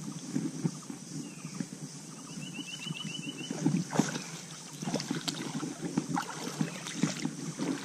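Rubber boots wading through shallow stream water: irregular sloshing and splashing with each step, a few louder splashes in the second half.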